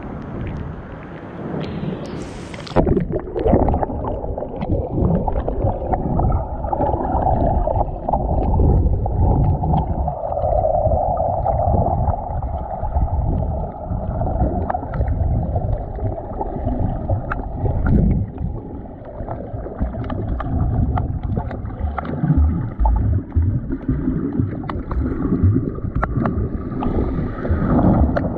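Surf washing at the water surface, then a splash about two and a half seconds in as the camera plunges under. After that comes muffled underwater sound: a low rumbling swish of moving water with scattered small crackles, and a brief splash near the end.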